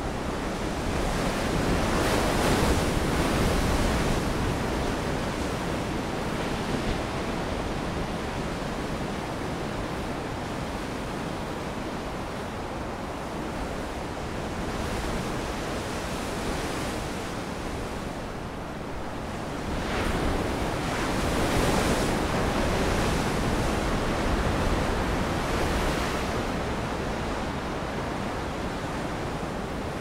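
Ocean surf: a continuous wash of breaking waves, swelling louder about two seconds in and again from about twenty seconds in.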